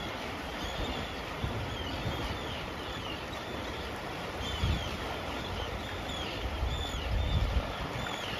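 A flock of seabirds calling over and over with short, high, arched calls, over a steady rush of flowing water and wind buffeting the microphone.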